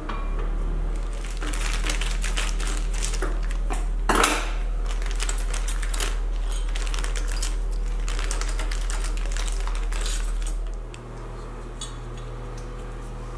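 Small metal brake parts clinking and rattling as they are handled: brake pads being worked into a caliper and brass brake-line fittings in a plastic bag, with a short louder clatter about four seconds in. A steady low hum runs underneath and drops in level near the end.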